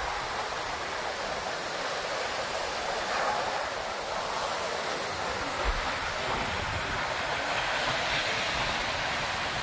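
Sea surf washing onto a beach: a steady rush of breaking waves, swelling a little every few seconds.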